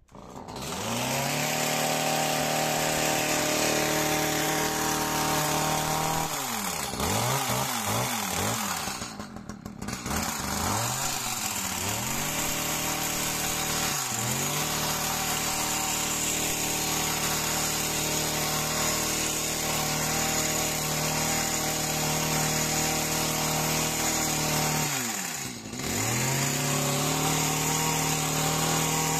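Two-stroke petrol chainsaw running at high revs, its engine note sagging and picking back up several times: a wavering stretch about six to ten seconds in, a short dip near the middle and another near the end.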